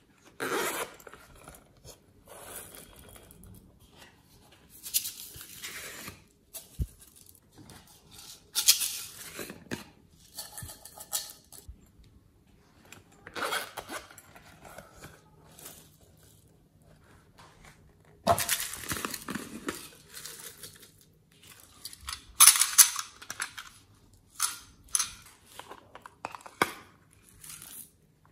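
Hands handling and opening silicone pencil cases and small plastic boxes: irregular rustles, clicks and zip pulls, some louder than others. Near the end, glitter is tipped out of a plastic box onto slime.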